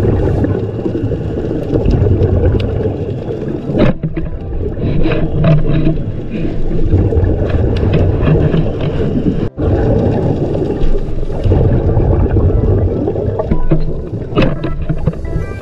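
Muffled underwater rumble and water movement, a steady low noise with faint clicks and crackles, heard through a camera underwater on a spearfishing dive.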